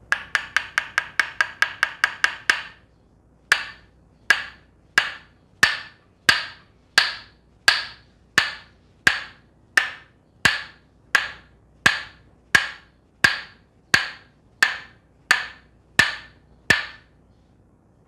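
Tok Sen massage: a wooden mallet tapping a wooden wedge held against the neck, making sharp wooden knocks that ring briefly. A fast run of about five taps a second for the first two and a half seconds, then steady single taps about every 0.7 s that stop about a second before the end.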